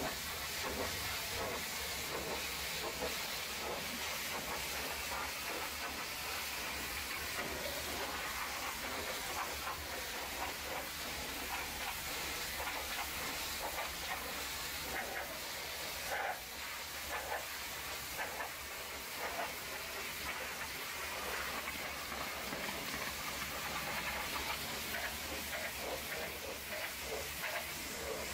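High-pressure washer jet spraying water onto a truck cab's panels and windows, a steady hiss of water spray.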